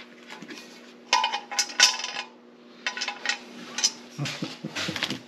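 Bolts and small metal parts clinking and jingling as they are handled, in three short bursts, over a steady low hum.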